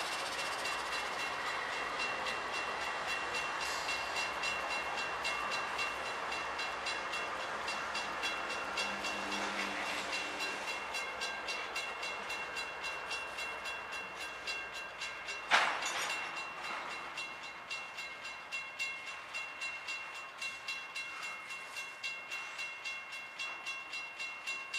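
Freight train passing through a grade crossing: the trailing diesel locomotives, then freight cars rolling by with a steady clatter and regular wheel clicks about twice a second. A crossing bell rings over it, and there is a single sharp bang about fifteen seconds in.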